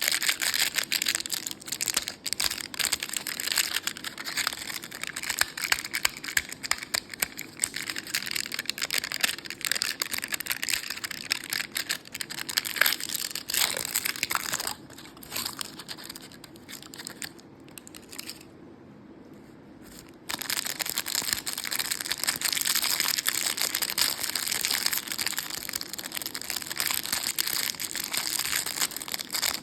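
Close-miked crinkling and crunching of colourful chocolate lollipops and candy, a dense run of small crackles. It drops to a quieter stretch a little past halfway and comes back suddenly about two-thirds of the way in.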